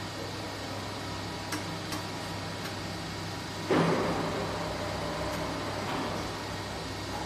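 Steady low hum from the idling embossing press. Two light clicks, then about four seconds in a sudden louder noisy rustle that fades over about two seconds as the cloth is handled on the press bed.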